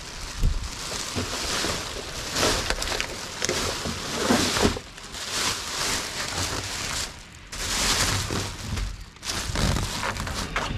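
Plastic rubbish bags being handled and rummaged through, rustling and crinkling in irregular bursts, with a few low thumps.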